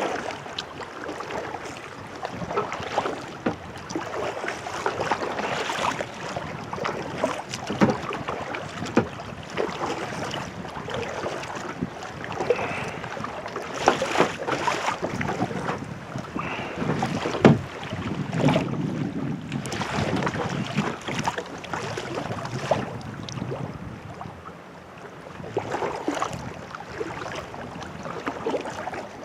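Water splashing from kayak paddle strokes and chop slapping the hull, in irregular bursts, with wind buffeting the microphone.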